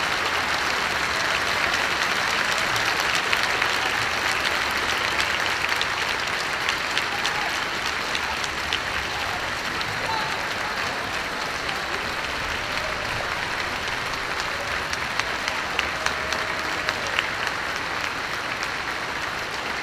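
Large audience applauding steadily, slowly tapering off toward the end.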